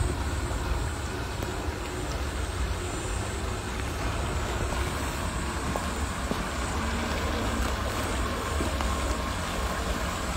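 Steady wind rumbling on the microphone: a low, even noise with no distinct events.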